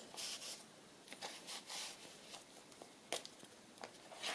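Faint rustling and sliding of paper journal cards and tags being handled, with a few light taps and ticks.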